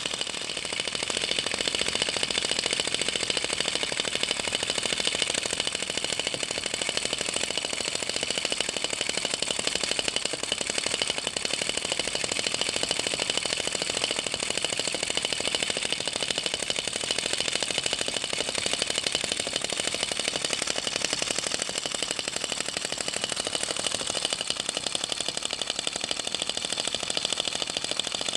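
Star Power vacuum (flame-licker) model engine running steadily, fired by an alcohol burner flame drawn in through its port. It makes a rapid, even clatter of clicks.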